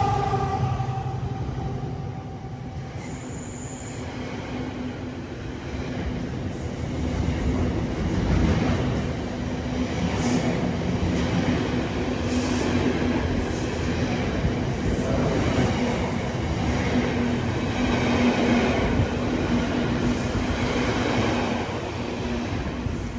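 A train running along the rails with a steady rumble and a low hum, and high wheel squeals coming and going from about ten seconds in.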